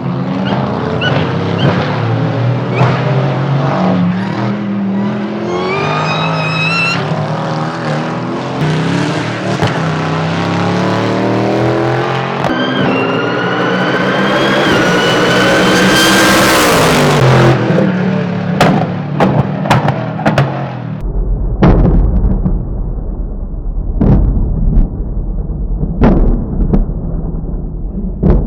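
Supercharged C7 Corvette V8 at full throttle, its revs climbing and dropping through gear changes under a loud, high supercharger whine that rises with the revs. For the last several seconds the whine and engine note drop away, leaving a low rumble with sharp thumps.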